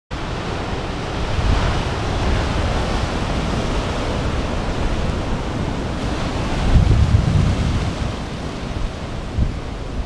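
Rough Mediterranean sea surf breaking and washing over a rocky shore in a heavy swell: a steady wash of white water with rumbling surges as waves hit, the loudest about seven seconds in.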